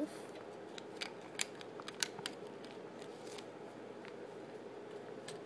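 Plastic Lego pieces clicking and knocking as the roof is fitted onto a Lego police helicopter: a scatter of short, sharp clicks in the first couple of seconds, then a few sparser ones over a faint steady background.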